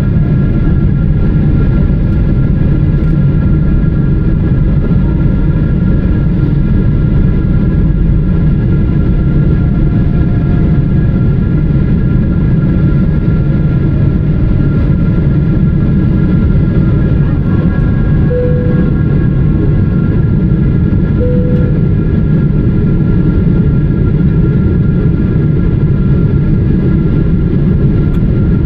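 Airliner cabin noise in a Boeing 777-300ER during descent: a steady, loud rumble of airflow and the GE90-115B engines, with a few faint steady hum tones over it. Two short tones sound about two-thirds of the way through.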